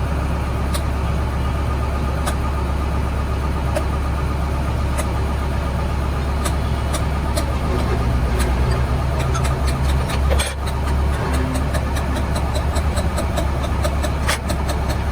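A steady low mechanical hum with scattered sharp clicks and taps. The clicks come thicker over the last few seconds.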